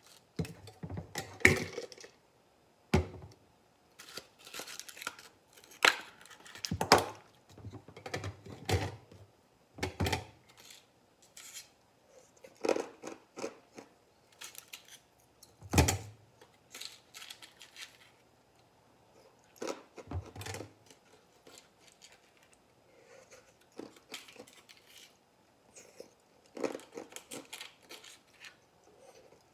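White plastic ice cube tray being twisted and flexed, with irregular crackles and snaps as the frozen cubes crack loose and several heavier knocks of ice.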